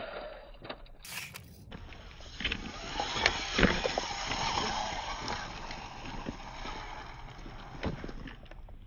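Small RC car driving over river stones and out onto gravel: irregular clattering knocks of its wheels and chassis against the rocks over a steady rushing noise, loudest about three and a half seconds in.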